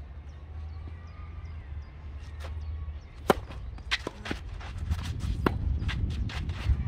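Tennis rally on a clay court: a racket strikes the ball with a sharp crack about three seconds in, followed by further racket hits and ball bounces, over a low steady rumble.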